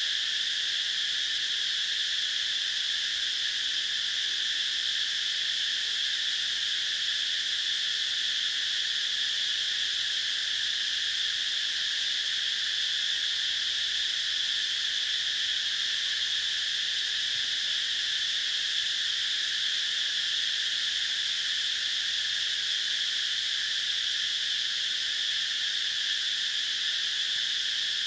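Steady, high-pitched insect chorus with no breaks or changes.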